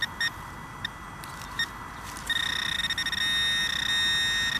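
Metal detector target tone: a few short electronic beeps, then a steady, slightly pulsing beep held from a bit past halfway on, signalling metal close by.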